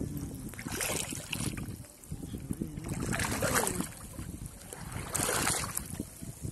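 Water splashing and sloshing as a bamboo polo fish trap is plunged into shallow, weedy water by a wader, three splashes about two seconds apart.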